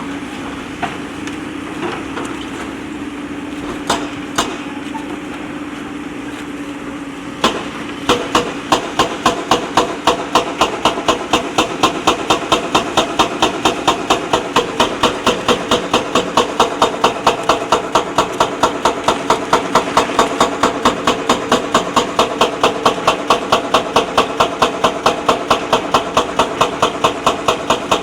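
JCB backhoe loader's diesel engine running with a few scattered knocks, then from about eight seconds in a steady series of sharp metallic impacts, about three a second, over the engine.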